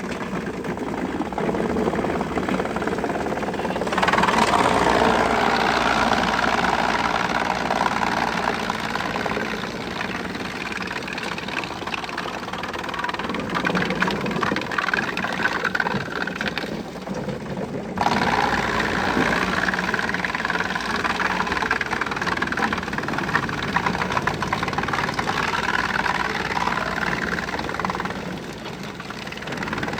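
Wood chipper running, its engine humming steadily under a louder rough, noisy rush of chipping. The rush sets in suddenly about four seconds in, eases off, and comes back abruptly a little past the middle.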